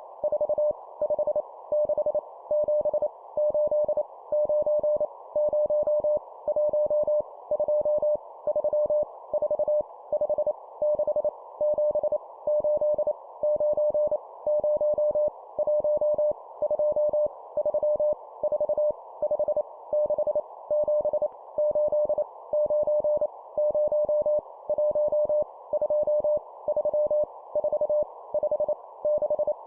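Morse code (CW) sent at 25 words per minute: a single steady tone keyed on and off in quick dots and dashes, spelling out groups of numbers for copy practice. A steady background hiss stays under the tone and fills the gaps.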